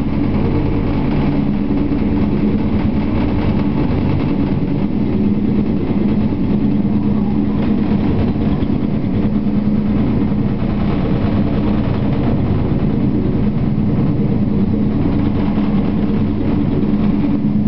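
Bell 214ST helicopter's twin turbine engines and main rotor heard from inside the cockpit: a steady, loud drone with a constant low hum and a fast, even rotor beat.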